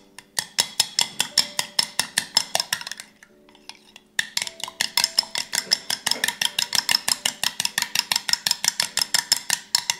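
Metal teaspoon beating an egg in a glass bowl: quick, even clinks of the spoon against the glass, about nine a second. It pauses for about a second around three seconds in, then starts again.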